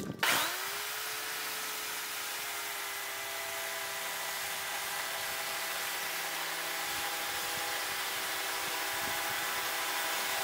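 Makita electric chainsaw cutting through the top of a wooden post. Its motor gives a steady, even whine that starts about a third of a second in.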